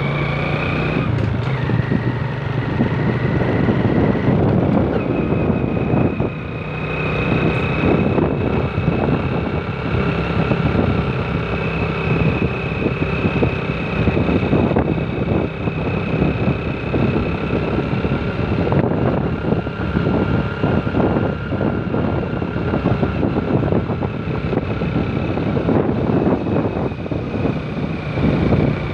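Motorcycle engine running at riding speed, with wind rushing over the microphone. A high engine whine rises about a second in, drops back, then climbs again about five seconds in and holds steady.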